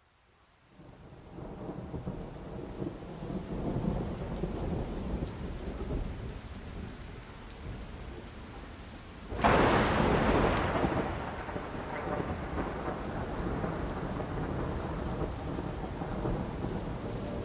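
Rainstorm: steady rain with low rumbling thunder fading in, then a loud thunderclap about nine seconds in that rolls away over a few seconds.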